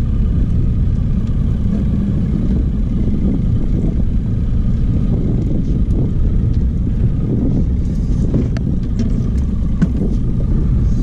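A boat motor running steadily while the boat is under way, with wind rumbling on the microphone.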